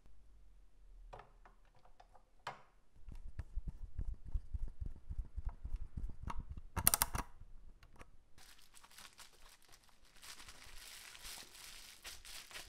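A screwdriver driving screws into a plastic toy car's rear wing, a fast run of clicks and low knocks for several seconds. In the last few seconds a plastic bubble-wrap bag crinkles as it is handled.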